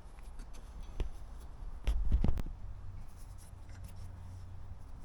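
Hands working on motorcycle parts: light rubbing and scattered small clicks, a knock about a second in and a louder cluster of knocks about two seconds in.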